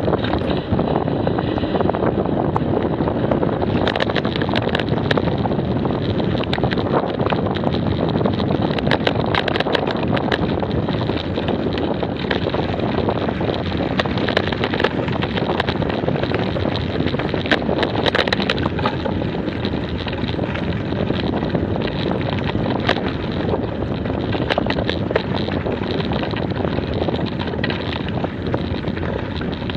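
Wind buffeting an action camera's microphone on a moving bicycle, with steady tyre rumble on a rough lane surface and frequent clusters of rattling clicks as the bike goes over bumps.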